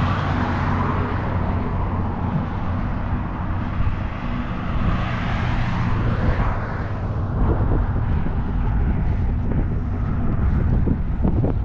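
A motor vehicle running steadily, its engine a low, even hum under road and wind noise.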